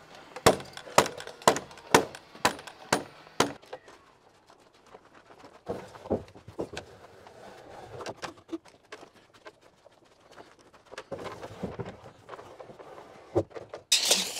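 Framing nailer driving a quick run of about seven nails, roughly two a second, into the plates of a 2x6 wall. Scattered knocks of lumber being handled follow, with a loud burst of noise near the end.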